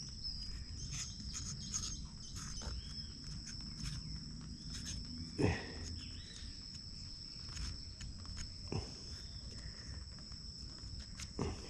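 Steady high-pitched insect chirring, like crickets, with scattered short knocks and scrapes from work on the dragon fruit stem, the loudest about five and a half seconds in.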